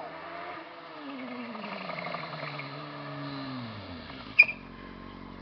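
Honda CBR600 sport bike's inline-four engine running as it approaches along the road, its pitch falling steadily as the rider eases off and then settling low. A single sharp click about four seconds in.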